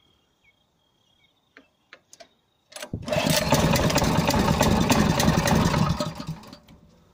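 INGCO 6.5 hp stationary petrol engine started: after a few faint clicks it catches a little under three seconds in, runs for about three seconds, then dies away. The owner puts the stalling down to over-fuelling on choke and no fuel getting through with the choke off.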